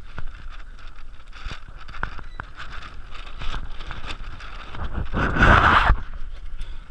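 Wind buffeting the microphone as a low rumble, with scattered clicks and knocks. About five seconds in, a louder rushing noise lasts about a second and cuts off suddenly.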